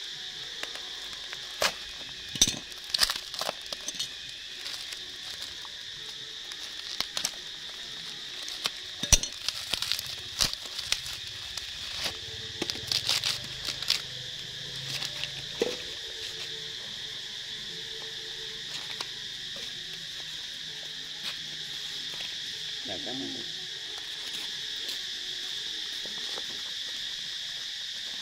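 Steady high-pitched insect chorus that runs throughout. Through the first half or so, scattered sharp clicks, knocks and rustles of objects being handled are heard over it, then they stop.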